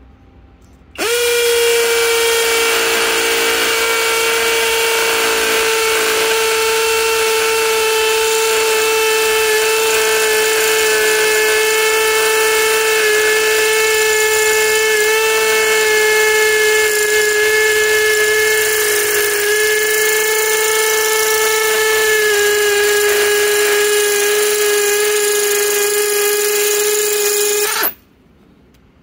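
Flex FX1231 24-volt compact cordless hammer drill hammer-drilling a hole into a concrete paving block. It starts about a second in, runs loud at a steady high pitch that sags slightly, then stops suddenly near the end.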